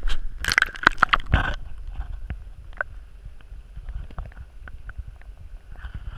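A burst of crackling scrapes and knocks as an action camera is pushed through slush into an ice-fishing hole, cutting off about a second and a half in. Then comes the dull, muffled rumble of the camera under water, with faint scattered ticks.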